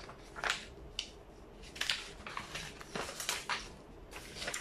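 A sheet of paper rustling and crinkling several times as it is handled and pulled off a desk.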